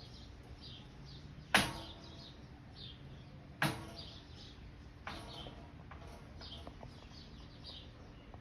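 Short high bird chirps repeating about twice a second, broken by three sudden loud knocks: the loudest about a second and a half in, then two more near the middle.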